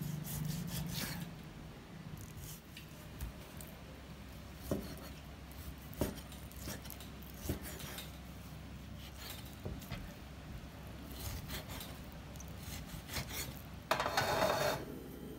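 A large chef's knife slicing raw beef on a round wooden chopping board: the blade drawing through the meat, with scattered knocks as it meets the wood. Near the end comes a louder rasping noise about a second long.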